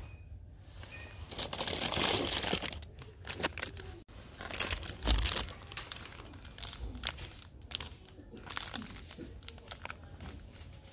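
Thin plastic wrapping around a stack of paper muffin cases crinkling in irregular bursts as the pack is handled.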